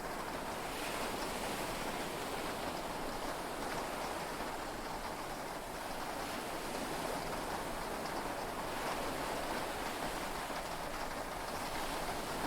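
Heavy rain falling steadily on a yacht, heard from inside the cabin as an even hiss with no thunder.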